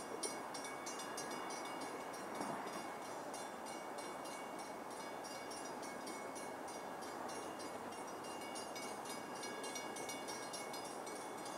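Rapid, regular ringing, about four strikes a second with a steady metallic ring, over an even background hiss: a railroad grade-crossing bell sounding for an approaching Long Island Rail Road train.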